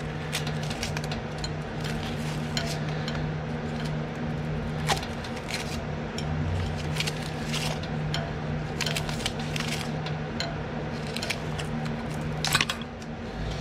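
Scattered metallic clicks and clinks as a mower's grass flap control cable and its end fittings are handled and pulled against the steel frame, two of them louder, about five seconds in and near the end. A steady low hum runs underneath.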